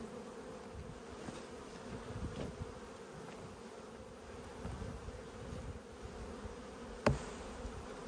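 Honeybees buzzing in a steady hum around a hive opened for inspection. A single sharp knock comes about seven seconds in.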